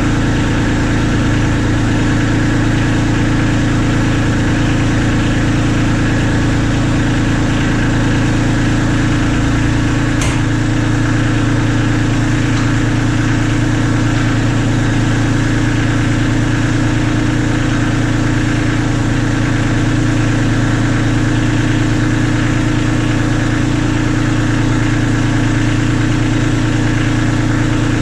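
Kubota B2650's three-cylinder diesel engine idling steadily, with one light click about ten seconds in.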